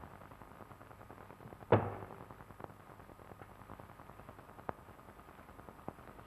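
Faint hiss of an old film soundtrack, with one dull knock about two seconds in and a few faint clicks after it.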